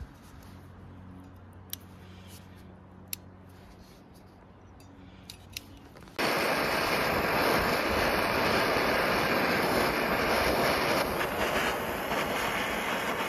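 A few sharp clicks from a hand crimping tool closing on an MC4 connector's metal pin, then a handheld butane torch that starts suddenly about six seconds in and hisses steadily while it heats the crimped pin for soldering.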